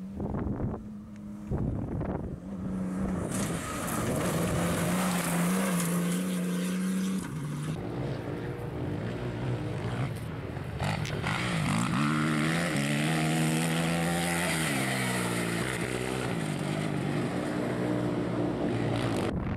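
Rally-raid engines working hard on dirt stages: a rally car passes first, then off-road motorcycles rev up and down through their gears. The sound changes abruptly several times as one pass gives way to the next.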